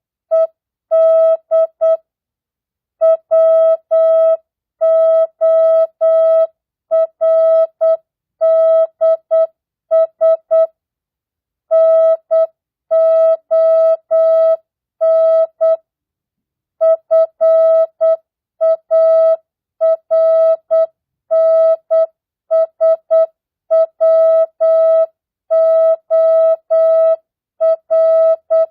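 Morse code (CW) practice tone: a single steady beep keyed on and off in dots and dashes at 8 words per minute, non-Farnsworth, sending mixed words, numbers and punctuation. Characters come in tight groups, with longer pauses between words.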